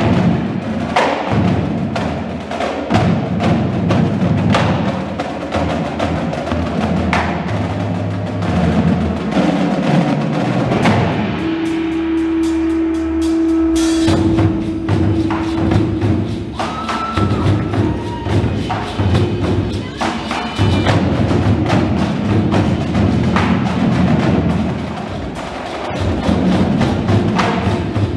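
Indoor drumline and front ensemble playing together: marching snare, tenor and bass drums over keyboard percussion. About twelve seconds in the drumming thins out under a single held tone for a couple of seconds, then the full ensemble comes back in.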